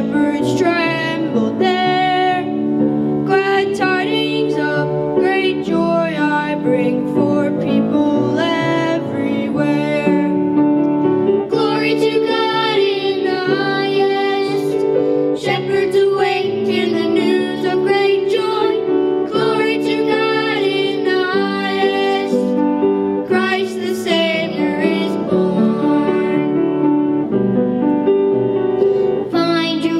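Two children, a boy and a girl, singing a song into microphones over instrumental accompaniment.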